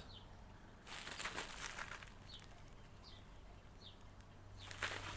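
A few short, faint bird chirps, with brief rustling about a second in and again near the end, over a faint steady low hum.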